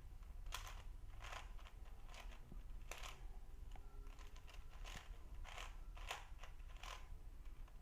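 Shengshou 5x5 plastic puzzle cube being turned by hand, its layers clacking in quick, irregular turns about once or twice a second.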